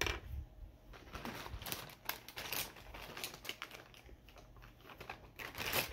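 Makeup items being handled on a table: irregular light clicks, taps and plastic rustling, with a louder clatter near the end.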